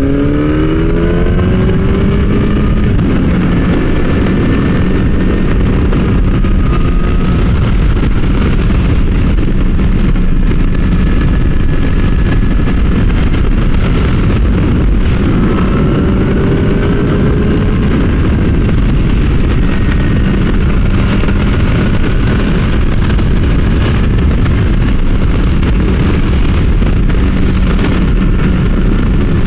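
Kawasaki ZX-10R sport bike's inline-four engine pulling up through the revs for the first couple of seconds, then holding a steady cruising speed. A dense, steady rush of noise runs under the engine note throughout.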